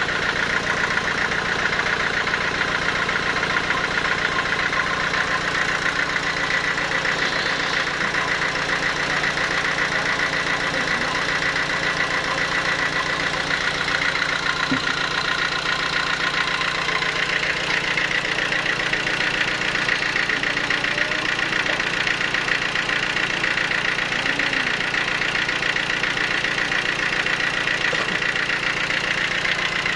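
Sawmill machinery running steadily, an engine-like sound with a fast, even pulse and no break.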